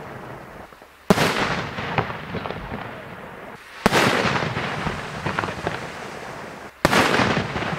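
Aerial firework shells bursting: three loud bangs about three seconds apart, each followed by a fading tail of crackling.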